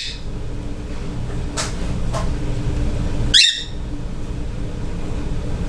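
Pet budgerigar giving one short, sharp chirp about three and a half seconds in, with a couple of fainter chirps earlier, over a steady low background hum.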